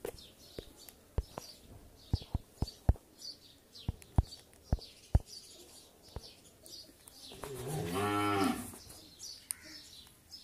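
A cow mooing once, a long call about seven seconds in that rises and then falls in pitch. Before it come a dozen or so sharp, quiet clicks.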